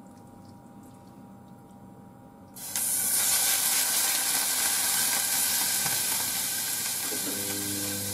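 Sliced meat hitting a hot stainless saucepan and sizzling. The sizzle starts suddenly about two and a half seconds in and keeps up steadily.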